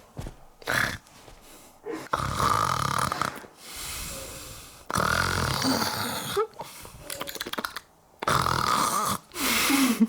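A puppet character snoring: three loud, rasping snores about three seconds apart, each followed by a quieter breath out.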